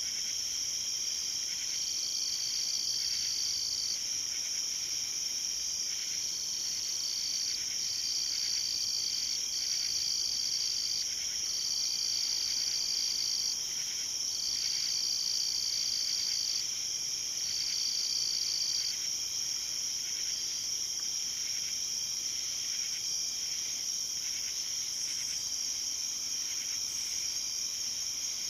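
Night insect chorus: a steady, high-pitched shrill trill. A second, slightly lower-pitched insect joins in repeated bouts of a second or two each, then stops about two-thirds of the way through.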